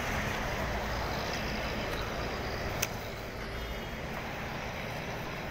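Steady city street traffic noise, a low rumble of passing vehicles, with one short sharp click a little under three seconds in.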